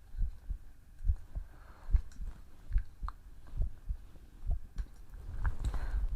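A person's heartbeat heard close up: low, soft double thumps at a steady pace of a little over one beat a second.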